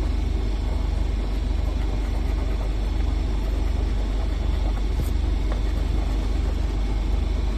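A coin scratching the coating off a scratch-off lottery ticket, over a steady low hum.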